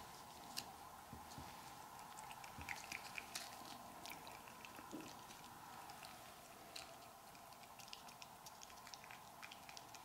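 A cat licking and smacking at a squeeze-tube treat: faint, quick, irregular wet clicks, over a steady hum.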